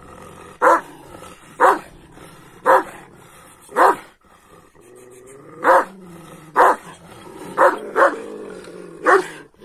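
Large Kangal shepherd dog barking, nine loud single barks about a second apart, with a short pause in the middle.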